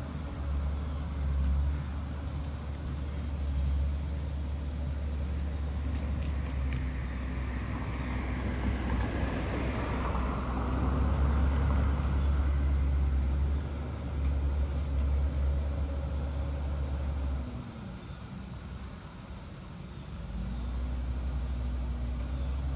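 Garbage truck's diesel engine running steadily as a low rumble, dropping away about three-quarters through and revving back up a few seconds later. A broad swell of road noise rises and fades around the middle.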